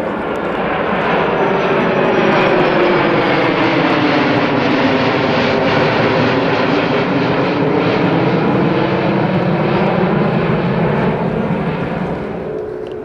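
Jet engine roar of two F-15 Eagle fighters flying over in formation, growing louder over the first couple of seconds, holding, then fading near the end, with a phasing sweep in the tone as they pass.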